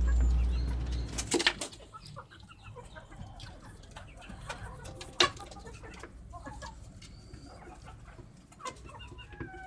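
A flock of desi hens clucking and giving short calls in a coop, with a few sharp knocks about a second and a half in and again near the middle.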